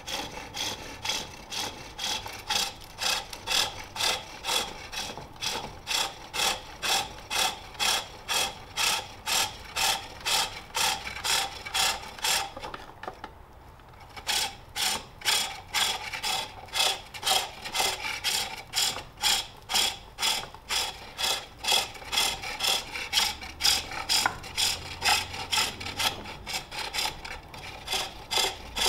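Spring pole lathe turning a jacaranda bowl: a hand-forged turning tool cuts on each treadle down-stroke, giving a rhythmic scraping at about two and a half strokes a second. The strokes stop for about a second and a half halfway through, then start again.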